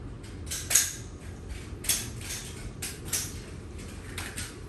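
Rifle shots from several shooters on a firing line, coming at irregular intervals, the loudest about a second in, over a steady low background rumble.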